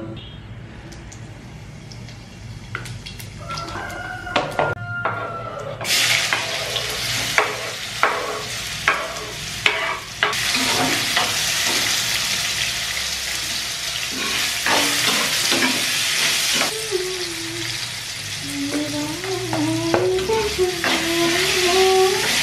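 Potatoes frying in hot oil in a black kadai (wok): the sizzle starts suddenly about six seconds in and keeps going, with a metal spatula knocking and scraping against the pan as they are stirred.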